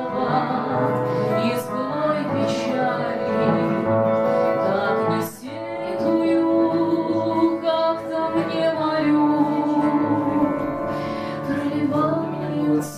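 A woman singing a song to her own acoustic guitar, with a brief break between phrases about five seconds in.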